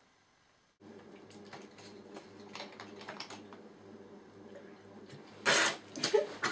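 Small clicks and crinkles of a plastic water bottle being handled while drinking lying upside down, then about five and a half seconds in a loud splutter and cough as the water goes down the wrong way.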